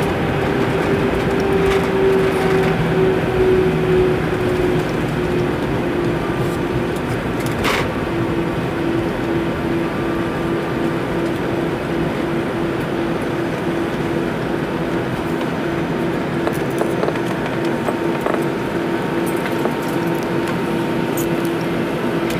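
Cabin noise of an Airbus A319 heard beside the wing during landing: a steady rush of engine and rolling noise under a humming tone. The tone drops a little in pitch over the first several seconds, then holds steady. A single sharp click comes about eight seconds in.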